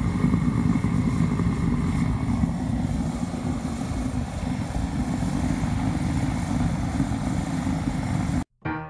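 Orion HPS-310A jet heater running: the steady low rush of its fan and burner, with a faint high whine that fades out about two and a half seconds in. The sound cuts off abruptly near the end, and piano music begins.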